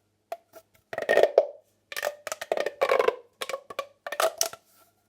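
Plastic pop tube fidget toy being stretched and squashed, its ridges snapping with rapid clicking pops that come in several bursts.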